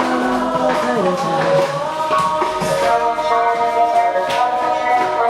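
Music with singing: a song playing out with held, gliding sung notes.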